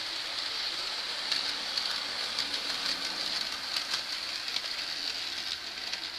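Model train running on the layout's track: a steady whirring hiss from the wheels and motor, with many small irregular clicks.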